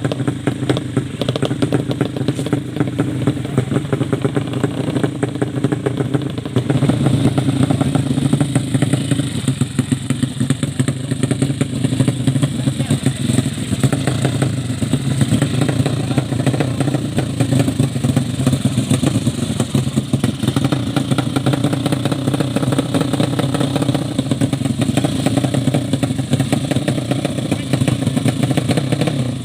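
Drag-race motorcycle engines running steadily at close range, a dense rapid pulsing with no clear rise or fall in revs.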